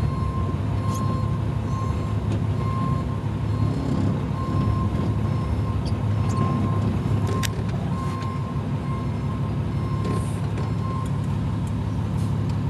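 Tractor-trailer reversing: its diesel engine runs low and steady while a backup alarm beeps about twice a second, heard from inside the cab.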